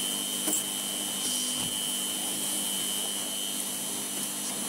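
Electrolux Z350 Electronic cylinder vacuum cleaner running steadily on its lowest power setting, a motor hum under a high whine. A plastic-based floor tool scrapes a little as it is pushed over carpet, with a couple of light clicks early on.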